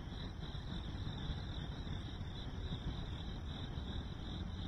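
A chorus of crickets chirping in a steady, pulsing high trill, over a low, even rumble.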